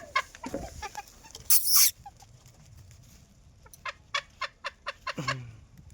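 Fowl clucking: a run of short, sharp clucks near the end, with a brief loud hiss about a second and a half in.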